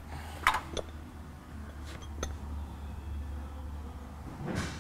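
A few sharp metal clinks and knocks as the unbolted stock steel track bar is worked free of its mounts, the loudest about half a second in, over a steady low hum.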